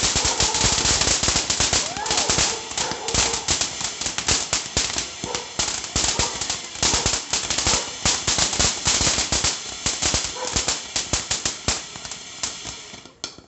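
Ground fountain firework burning, its spray of sparks going off in dense, rapid, irregular crackling pops that thin out and fade near the end.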